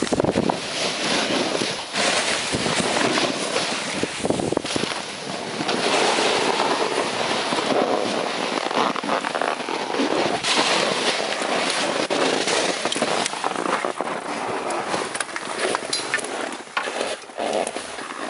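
Snow crunching and scraping under skiers moving through deep snow, a steady rough noise studded with many sharp crackles and clicks.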